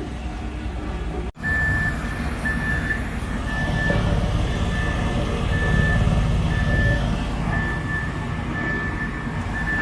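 Reversing alarm of a heavy construction vehicle beeping at an even pace over the low rumble of its diesel engine working on the road site.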